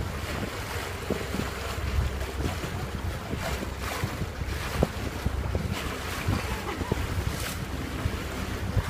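Vaporetto (Venetian water bus) engine running with a low steady rumble under rushing water and wind on the microphone, with a few sharp knocks.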